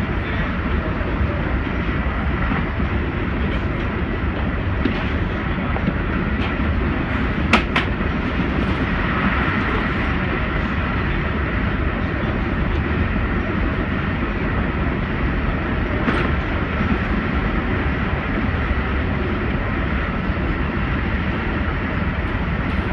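Amtrak Acela train in motion: a steady rumble and hiss of the running train, with a single sharp click about seven and a half seconds in.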